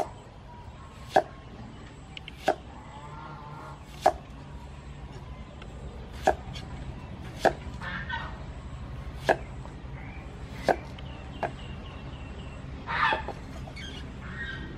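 Knife chopping an onion on a thick round wooden chopping board: about eight single, sharp knocks one to two seconds apart. Birds call between the chops, with a louder call near the end.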